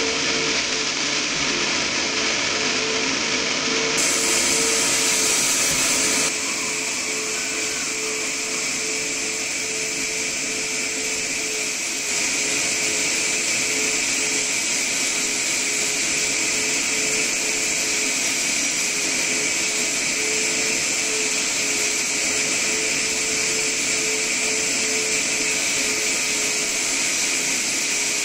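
Tank-type wet-dry sofa-cleaning vacuum running steadily, a constant hum under a loud suction hiss as its crevice nozzle is drawn over the upholstery fabric.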